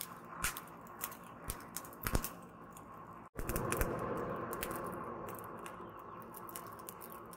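Charcoal forge fire crackling and popping with sharp irregular snaps over a steady rushing noise, as a steel blade heats in the coals. The sound breaks off for an instant about three seconds in, then the rushing returns louder.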